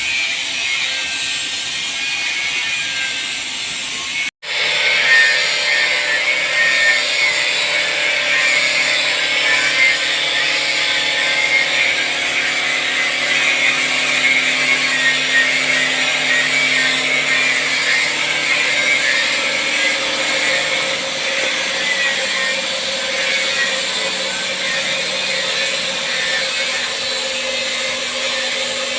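Automatic wood lathe running and cutting a wooden workpiece: a steady machine sound with the rasp of the cutter on wood, over music. The sound cuts out completely for an instant about four seconds in.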